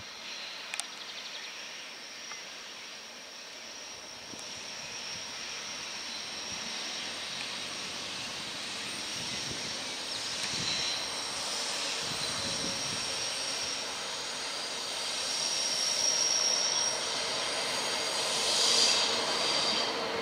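ICE high-speed train approaching slowly round a curve, its running noise growing steadily louder. A high wheel squeal from the curved track strengthens near the end.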